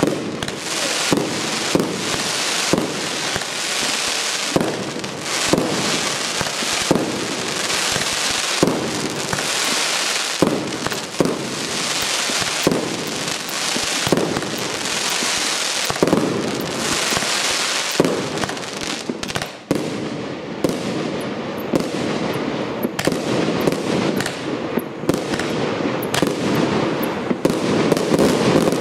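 Fireworks battery (the Piro-Kaskad 'Artillerymen' PKU895 cake) firing, a rapid string of sharp shots about one to two a second over a steady hiss.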